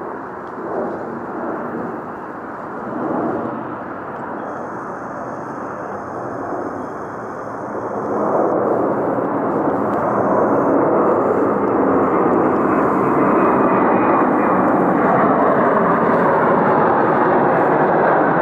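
McDonnell Douglas MD-11F's three Pratt & Whitney PW4460 turbofans at takeoff thrust as the jet climbs out: a steady, loud jet rumble that grows louder about eight seconds in and then holds.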